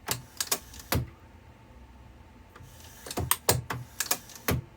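Sharp metallic clacks and knocks from a Hardinge turret lathe's turret being worked and checked against its depth stops: a cluster in the first second, then another run from about three seconds in.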